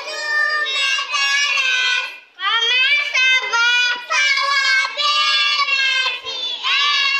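A young child singing a song into a microphone, in held notes, with a short break for breath about two seconds in.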